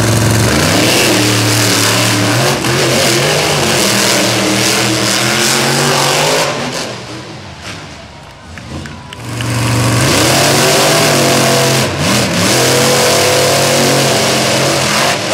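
Monster truck engine revving hard in two long runs, its pitch climbing and falling, easing off for a couple of seconds about six seconds in before revving up again.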